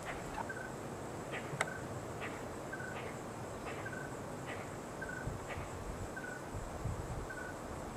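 Outdoor wildlife sound: a short high chirp repeated about once a second over a faint steady high hum, with a single click about one and a half seconds in and some low rumble near the end.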